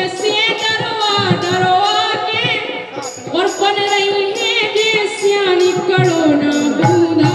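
A boy singing a Bundeli Rai folk song through a stage sound system, with long, ornamented held notes and a short break about three seconds in. Under the voice runs a steady percussion beat of sharp strokes, about three a second.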